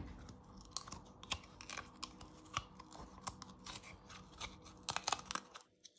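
Faint, irregular small clicks and crackles of fingers pulling seeds and white pith out of a halved green bell pepper over a wooden chopping board, a little busier near the end.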